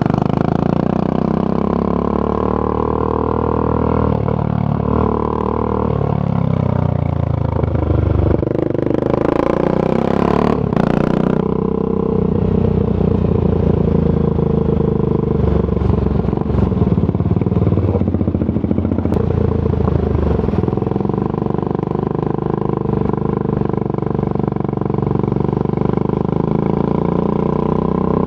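Triumph Scrambler 400 X single-cylinder engine through a Zard aftermarket exhaust, heard while riding. It rises and falls in pitch as it speeds up and slows for the first ten seconds or so, then runs at a steadier speed. There are a couple of short knocks about ten seconds in.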